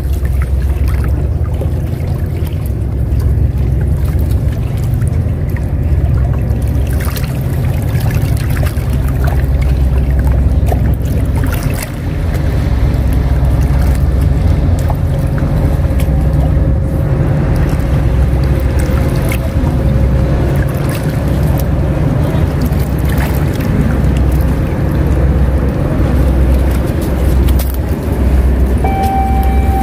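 Wind buffeting the microphone in a steady low rumble, with outdoor water noise. A steady single tone starts near the end.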